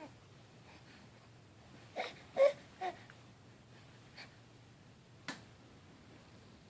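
A baby making three short vocal sounds in quick succession about two seconds in, the middle one loudest, then a fainter one and a brief sharp sound a little later.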